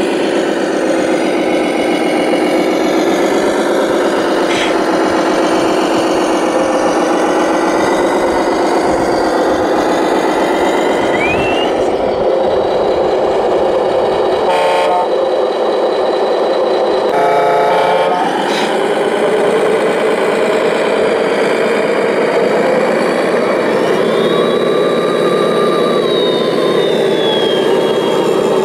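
RC scale model trucks' engine sound modules playing simulated heavy diesel engines. Several engine notes overlap and waver in pitch as the trucks drive. A high whine rises and then holds in the last few seconds.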